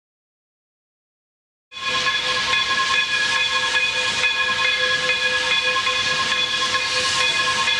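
Steam locomotive whistle blowing one long, steady blast with steam hiss, starting suddenly after a couple of seconds of silence.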